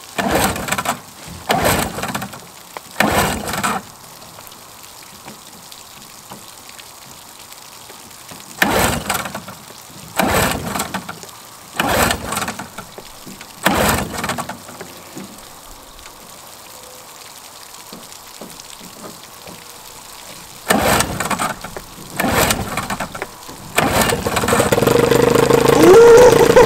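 A 15 hp Evinrude two-stroke outboard is pull-started by hand: about ten short cranking pulls of the recoil starter come in three bunches, with pauses between them. Near the end the engine catches and keeps running at a steady note.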